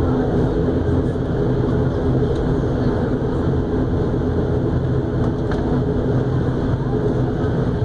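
ATR 42-500 turboprop's engine and six-blade propeller droning steadily, heard from inside the cabin next to the propeller, with a low steady hum under a rushing noise.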